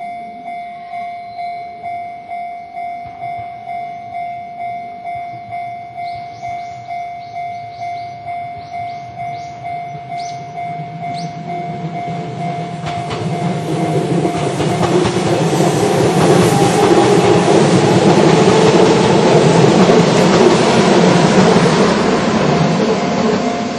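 Japanese level-crossing warning bell ringing in a steady, even rhythm, about one and a half strikes a second. About halfway in, a Kintetsu electric train approaches and passes over the crossing, its loud rumble and rattle of wheels on the rails drowning the bell, then easing slightly near the end.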